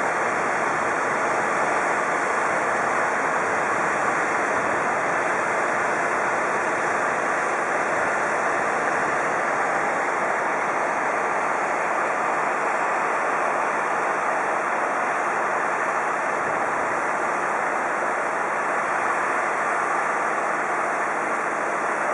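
A steady, even rushing noise at a constant loud level.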